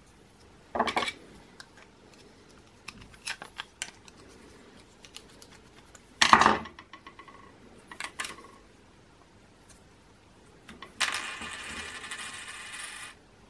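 Scattered sharp plastic clicks and knocks as a 3D-printed fidget spinner is handled and its bearing caps are taken off, the loudest a little past the middle. Near the end comes a steady whir of about two seconds that cuts off suddenly.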